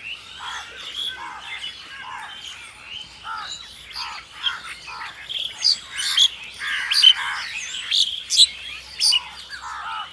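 Crows calling over and over, many calls overlapping, with sharp high chirps joining in from about four seconds in; the calling is loudest in the second half.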